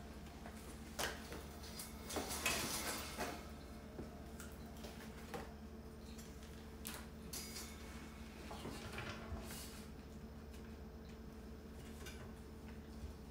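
Metal wire baskets clinking and rattling against a metal cart frame as they are handled and slid into place, in scattered bursts with the busiest clatter about two to three seconds in.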